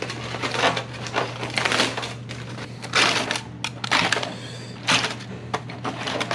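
Aluminium foil crinkling and rustling in irregular bursts as foil packets are pulled open.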